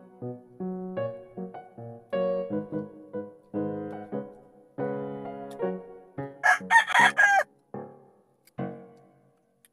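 Piano background music, with a rooster crowing once about six and a half seconds in, loud over the music for about a second.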